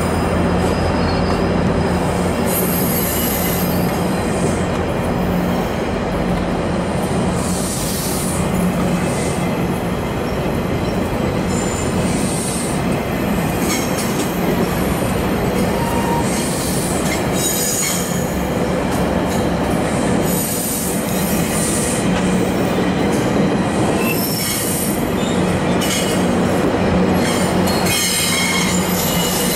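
GO Transit bilevel passenger train rolling slowly through curved trackwork and switches, its steel wheels squealing in high-pitched bursts on and off over a steady rumble and hum, with scattered clicks as the wheels cross rail joints.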